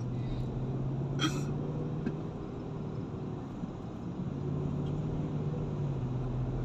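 Car engine and road noise heard inside the cabin while driving: a steady low hum that eases a little about two seconds in and picks up again around four and a half seconds.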